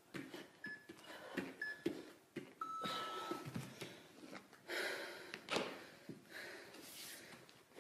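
An interval timer beeps twice briefly, then gives one longer beep, marking the end of a 30-second exercise interval, over soft thuds of hands and feet on an exercise mat. Heavy breathing follows.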